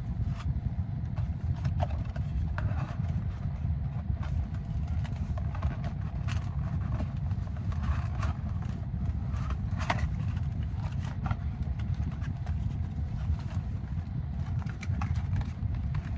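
A cardboard box of trading cards and its packs being handled and unpacked: scattered light clicks, taps and rustles over a steady low rumble.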